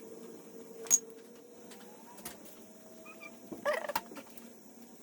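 A single sharp metallic clink about a second in, typical of a wrench or bolt during a final-drive drain on a motorcycle. A brief squawk-like pitched call comes a little before the four-second mark, over a faint hum.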